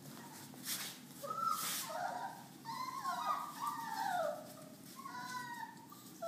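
Several young Rhodesian Ridgeback puppies whining and squeaking, short high calls overlapping and sliding up and down. The calls start about a second and a half in, after a couple of brief rustles.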